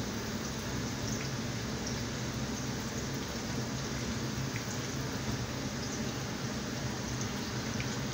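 Hot oil sizzling and bubbling steadily around breadcrumb-coated chicken cubes on skewers deep-frying in a pan, with a few faint crackles and a steady low hum underneath.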